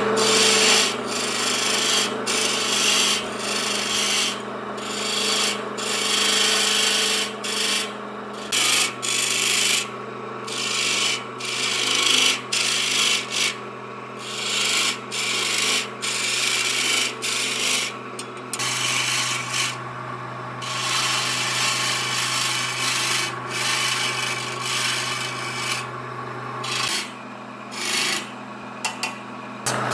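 Wood being abraded by hand, sanded or rasped, in many uneven back-and-forth strokes with short breaks between them, over a steady machine hum.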